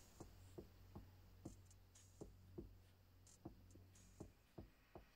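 Near silence with faint soft ticks, a little over two a second, from a silicone spatula working drained pepper pulp in a wire-mesh sieve.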